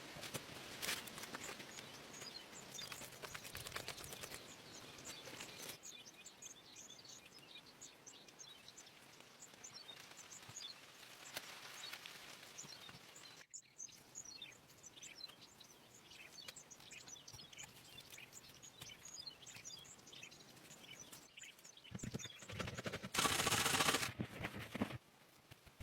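Outdoor ambience with many short, high bird chirps over a low background hiss. Near the end, a loud noisy rustling or scraping sound lasts about three seconds.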